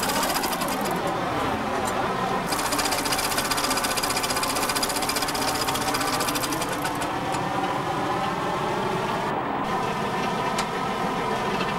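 Farm machinery's diesel engine running hard with a rapid, even beat, its pitch dipping and rising a little as the revs change.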